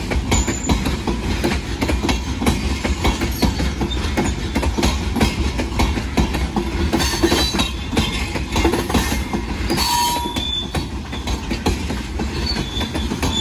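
Freight train's open-top hopper cars rolling past close by: a steady rumble with a rapid clatter of wheels on the rail, and a few short, high wheel squeals, the clearest about ten seconds in.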